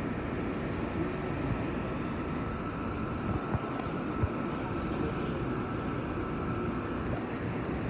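Steady hum and hiss inside an R46 subway car standing still, with a faint steady whine and a couple of small knocks around the middle.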